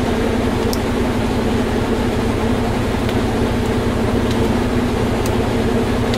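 High-efficiency top-loading washing machine with an agitator, running a long spin cycle: a steady hum over a low rumble.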